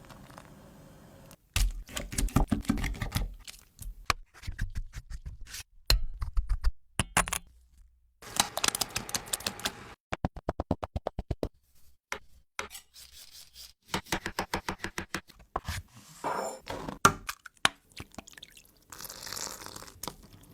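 Food-preparation sounds: a string of knocks, thunks and scrapes, with a run of about a dozen quick, even taps midway and short noisy stretches in between.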